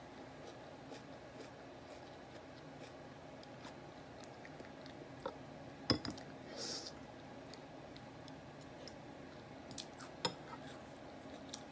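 Quiet eating sounds: scattered small clicks of cutlery on a plate and chewing, with a sharper clink about six seconds in, a short rustle just after it, and another clink near the end.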